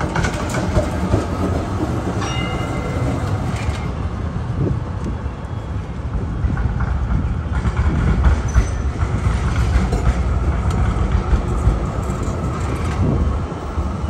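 Street trams running past on steel rails: a steady low rumble of wheels, with scattered clicks and clatter over the track. A brief high-pitched tone rings for a second or two, about two seconds in.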